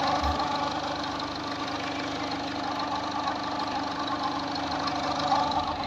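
Ford Figo diesel engine idling steadily.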